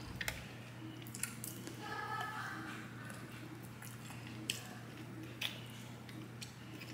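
Someone eating close to the microphone: quiet chewing and wet mouth noises, with a few short sharp smacks or clicks scattered through.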